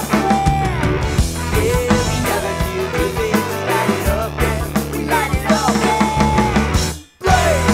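Rock music with a driving drum-kit beat, breaking off for a moment near the end before picking up again.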